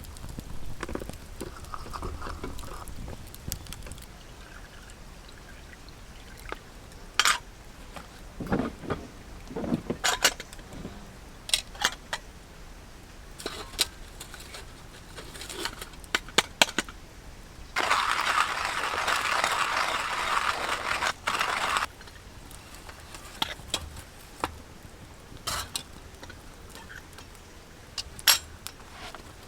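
Scattered clicks and knocks of handled metal camp gear, with liquid pouring steadily for about four seconds past the middle, stopping abruptly.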